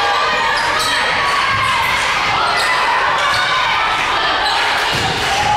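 Indoor volleyball rally in a large gym: the ball struck again and again by players' hands and forearms, with short squeaks and calls over a steady echoing hall noise.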